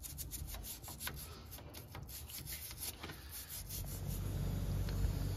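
Quick back-and-forth scrubbing or sanding strokes worked by hand over the engine bay's metal, cleaning it. They die away about three and a half seconds in, and a steady low hum takes over.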